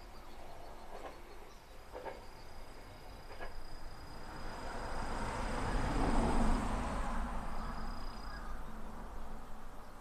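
A vehicle passing by out of sight, its noise swelling to a peak about six seconds in and then fading. Two short bird calls come early, and a thin steady high insect tone runs through the first half.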